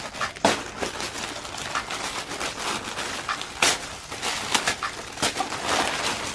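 Tissue paper rustling and a clear plastic garment bag crinkling as hands unwrap a T-shirt, with a few sharper crackles.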